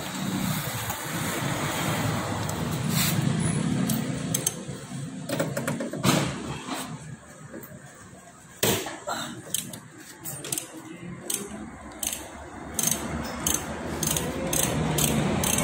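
Hand ratchet wrench clicking and metal tool clinks on a scooter's engine-support bolt, as the mount is worked on to replace its worn bushing. The clicks come in a run of about two a second near the end, over a low steady hum.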